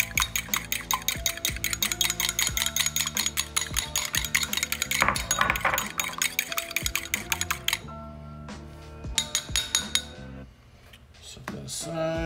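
Fork beating an egg in a small ceramic bowl: fast, even clinks of metal on the bowl, several a second, stopping about eight seconds in. Background music with held notes plays underneath.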